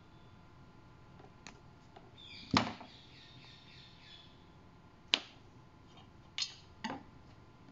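Sharp clicks and taps of small hand tools and wire while wire links are laid and hand-soldered on a perforated PCB. One loud click comes about two and a half seconds in, followed by a soft crackle lasting under two seconds, then three quieter clicks later on.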